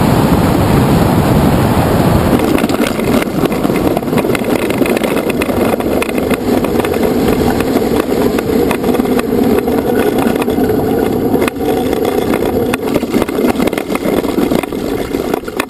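Wind rushing over the camera microphone and a tandem hang glider's base-bar wheels rolling and rattling over runway pavement after touchdown. The noise dies down near the end as the glider slows.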